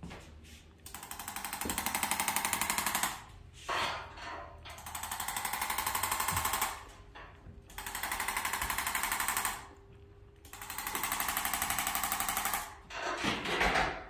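Arthrostim electric adjusting instrument firing rapid repeated taps against the lower back, in four bursts of about two seconds each with short pauses between. It is an instrument adjustment used in place of a manual one on a lower back prone to spasm.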